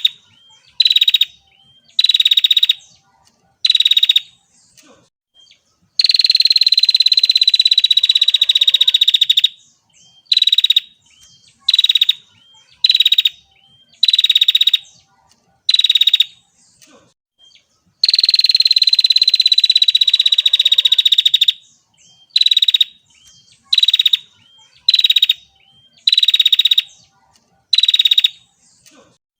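Female prinia (prenjak) calling: short buzzy trilled notes about once a second, twice giving way to a long rapid trill lasting about three and a half seconds.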